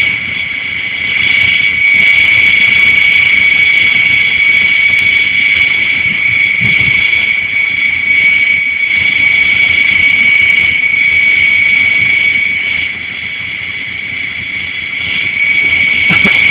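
Steady high-pitched mechanical whine over a low rumble, like a turbine running; it eases off a little for a couple of seconds near the end.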